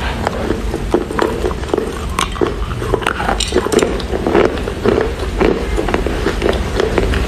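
Chewing a mouthful of wet Chinese loess clay: irregular wet mouth smacks and sharp clicks, two or three a second, over a steady low hum.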